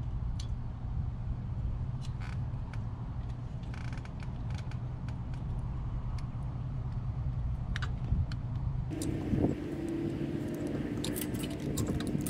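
Scattered light metallic clicks and clinks of a replacement carburetor and its linkage being handled and fitted onto a generator engine's intake, over a steady low hum. About nine seconds in, a second, higher steady hum starts.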